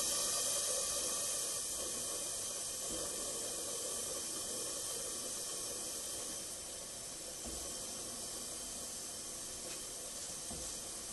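Steam blower hissing steadily in the chimney of a homemade model steam boiler, drawing up the fire; the hiss eases slightly partway through.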